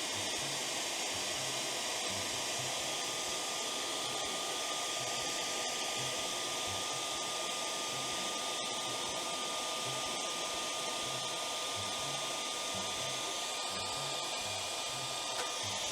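Handheld electric hot-air blower running steadily: a blowing rush with a thin, steady high whine from its fan motor. It is warming the adhesive of the factory paint protectors on a motorcycle tank so they can be peeled off.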